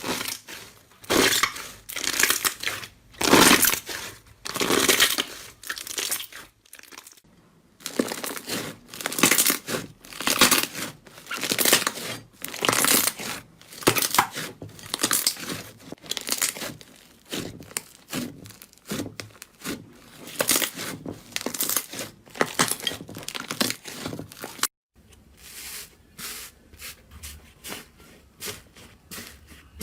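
Slime being pressed, stretched and poked by hand, giving repeated crackling, tearing noises about one to two a second. About three-quarters of the way through it cuts to a quieter run of lighter crackles.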